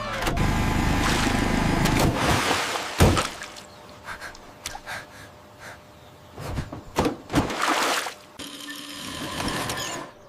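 Sound effects with no speech: a loud rushing noise over a low rumble for about three seconds, ending in a sharp hit, then quieter scattered knocks and a soft hiss.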